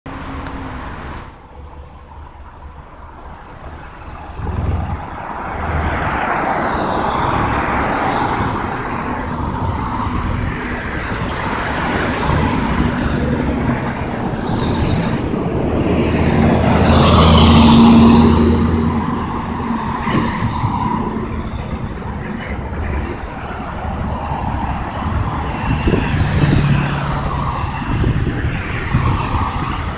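Road traffic: cars passing one after another on a multi-lane road, each swelling and fading, loudest about two-thirds through as one passes close.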